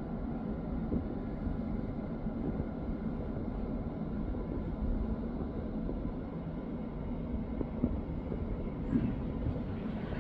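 Steady low outdoor rumble with a faint hum, broken by a few soft bumps.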